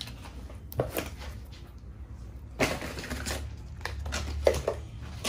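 Papers and parcel packaging being handled: soft rustling broken by a few sharp clicks and knocks, the loudest about a second in and again past the middle.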